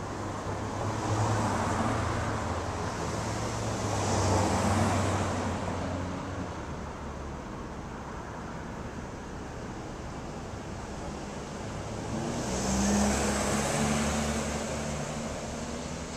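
Cars passing on a residential street: three passes of engine hum and tyre hiss that build and fade, about a second in, around four seconds in, and near the end, over a steady background of traffic noise.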